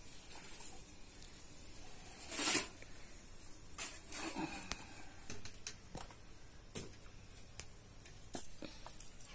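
Scattered light clicks and taps with brief rustling, and one louder rustling scrape about two and a half seconds in.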